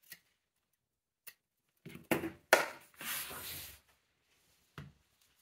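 Scissors cutting threads and the excess zipper tape of a sewn pencil case: a few sharp snips spread out, with about a second of fabric rustling in the middle as the piece is handled.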